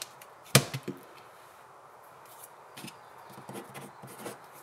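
A sharp tap on paper about half a second in and a lighter one just after, then faint, light scratching near the end as a wooden pencil writes on paper.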